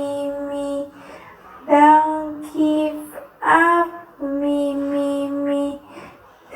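A single high voice, unaccompanied, singing drawn-out "me" syllables on long held notes: one held note ends about a second in, a few shorter notes follow, and a long held note comes in the second half.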